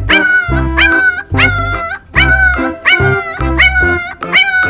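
A puppy giving high, short barks, heard over loud background music with a steady beat.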